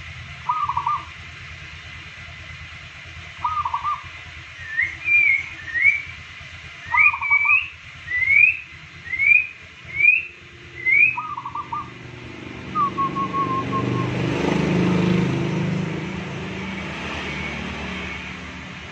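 A caged zebra dove (perkutut) gives short warbling coo bursts, spaced a few seconds apart, mixed with a run of quick rising chirps from another bird. In the second half a low background noise swells and fades.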